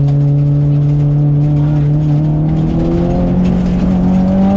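Inside the cabin of a 2010 Subaru Impreza WRX STI hatch, its turbocharged flat-four engine runs under load. It holds a steady note, then revs rise gradually from about halfway as the car accelerates, over a steady rumble of tyres on a wet road.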